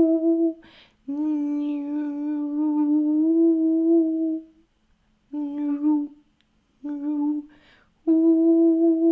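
A woman humming long, steady sustained notes, taking audible breaths between phrases. One note slides slightly upward, and two short notes come near the middle before a long note resumes near the end.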